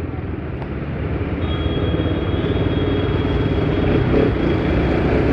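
Bajaj Pulsar RS200's single-cylinder engine running while the bike rides through city traffic, growing gradually louder. A thin high whine joins about a second and a half in.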